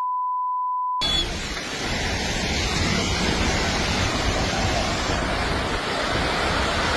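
A steady censor beep for about the first second, then a loud, even rushing noise like a raging river that runs on unbroken.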